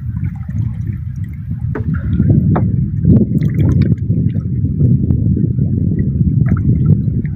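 Seawater sloshing and dripping around a small outrigger boat as a wet gill net is hauled in over its side. There is a continuous heavy low wash with a few faint ticks scattered through it.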